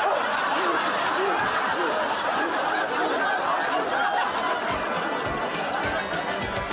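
Studio audience laughing: many voices together, steady throughout. Music comes in near the end.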